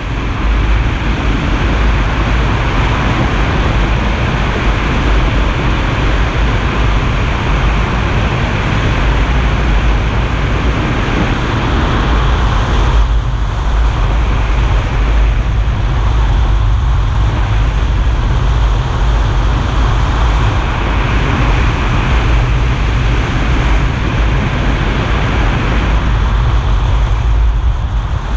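Car driving on a wet road: steady road and tyre noise with a low engine and drivetrain rumble.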